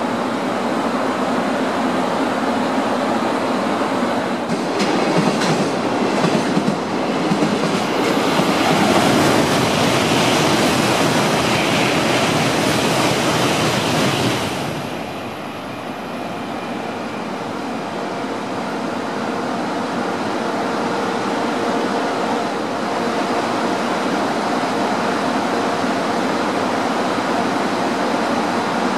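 Shinkansen bullet train passing through the station at speed without stopping: a rushing roar that swells from about four seconds in and stays loud for several seconds, then cuts off suddenly as the train clears the platform. A lower steady hum remains afterwards.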